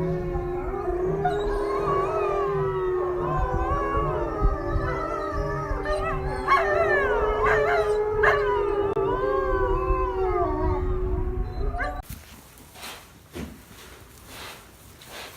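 A pack of gray wolves howling in chorus: several long, overlapping, wavering howls over one steady low howl, with a busier stretch of higher yips and short howls in the middle. The chorus cuts off abruptly about twelve seconds in, leaving faint rustling and a few soft knocks.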